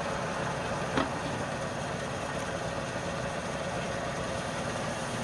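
A motor running steadily, with one short click about a second in.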